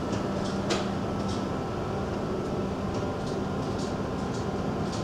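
Steady machinery hum on a cargo ship's bridge, a constant low drone with a held tone, with faint light ticks about every half second.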